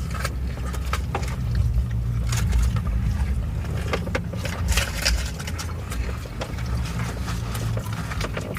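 Close-miked eating: chewing and crunching of food, with scattered crisp clicks and crackles, over a steady low rumble.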